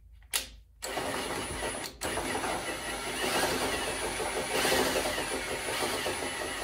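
Cordless drill running steadily, turning the leadscrew of a bandsaw's vise to drive the movable jaw closed. A short blip near the start, then continuous running with a momentary break about two seconds in.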